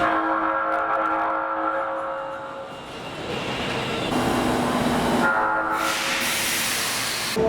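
Osaka Metro New 20 series (新20系) train's horn sounding: a strong, steady blast that fades out after about two and a half seconds, then sounds again about five seconds in, over train running noise. Its tone is odd, the mark of a car with an unusual-sounding horn.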